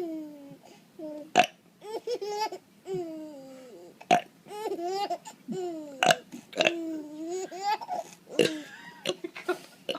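A man burps several times, short and sharp, and a young child laughs and squeals in high-pitched bursts between the burps.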